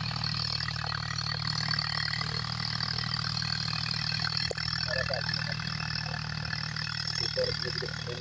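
Distant tractor engine running steadily as it pulls a rotary tiller through a field, with a steady high hiss above it.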